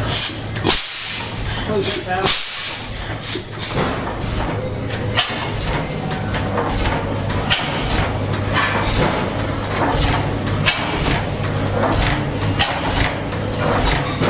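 Antique stationary gas engines running together: a steady low hum with irregular sharp exhaust cracks and mechanical clatter, the loudest cracks about one and two seconds in.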